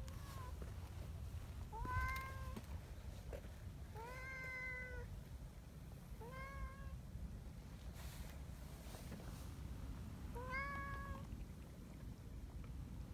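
A tabby cat meowing repeatedly: about five separate meows a couple of seconds apart, the longest about four seconds in, over a low steady rumble.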